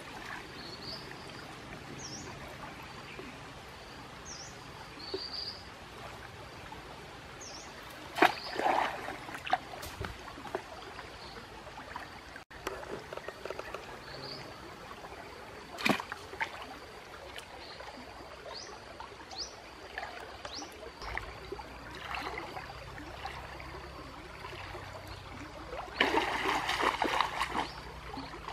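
Water splashing as a person wades through a shallow stream, with sharp splashes about eight seconds in and again around sixteen seconds, and a longer run of splashing near the end. A small bird chirps repeatedly in short calls over a steady background of flowing water.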